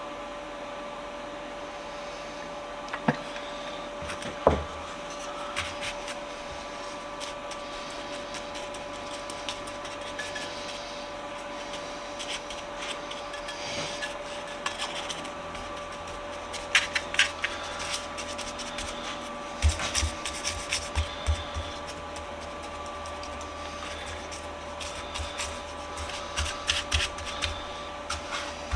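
Hand tool scratching and picking layers of old paint and rust out of a bench vise, in short irregular strokes and clicks that come in clusters. A steady hum runs underneath.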